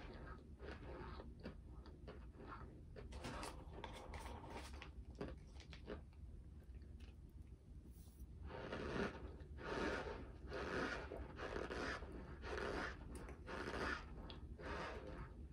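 A person chewing a mouthful of cornstarch powder and chunks: small mouth clicks at first, then, after a fresh spoonful about eight seconds in, louder crunching chews about once a second.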